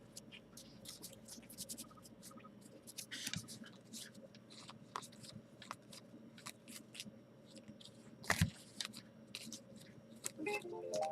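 Baseball trading cards being handled and flipped through during a pack break: a string of light clicks, slides and rustles, with one sharper knock about eight seconds in. A short pitched sound comes in near the end.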